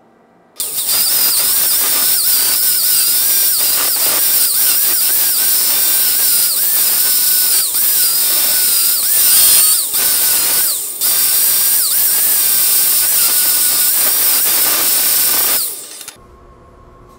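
Angle grinder with a thin abrasive disc grinding into a steel weld bead, its whine wavering in pitch as it bears on the metal. It is grinding out the weld toe to remove undercut and open up slag inclusions for repair. It starts about half a second in, falls off briefly twice around ten and eleven seconds in, and stops about a second before the end.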